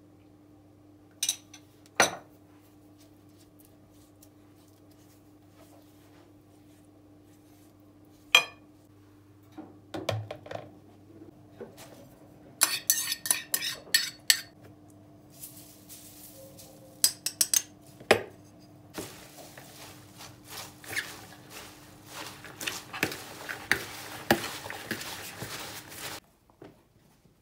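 Dishes and cutlery clinking and clattering as they are handled: a few separate sharp clinks, a quick flurry about halfway through, then a longer run of clattering with a hiss that stops suddenly near the end, over a faint steady hum.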